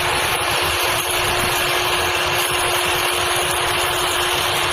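RK-150 half-feeding rice combine harvester running steadily, a continuous mechanical noise with a constant hum at one pitch.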